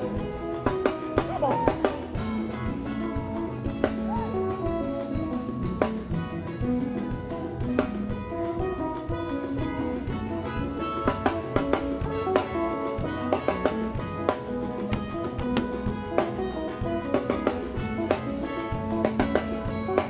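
Upbeat instrumental band music with a steady drum beat and guitar.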